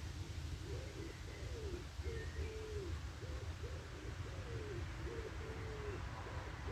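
A bird giving a run of about eight short, low, pure-toned calls, starting under a second in, over a steady low rumble.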